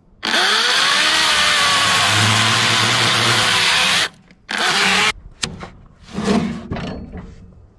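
Electric chainsaw spinning up and cutting into a pine log slab. It runs for about four seconds, stops, then makes a second short cut half a second later.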